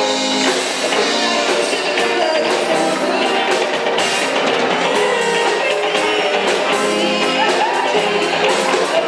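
Live band playing a pop-rock song with drum kit and guitar on a steady beat.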